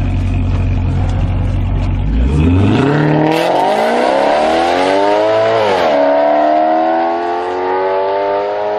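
Sports car engine running with a low steady note, then accelerating hard from about two seconds in: the revs climb, drop sharply at a gear change a little past halfway, and climb again.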